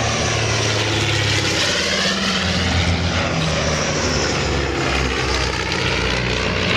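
Vintage de Havilland twin-engined biplane airliner flying past, its piston engines and propellers giving a steady drone whose tone sweeps and shifts as it passes.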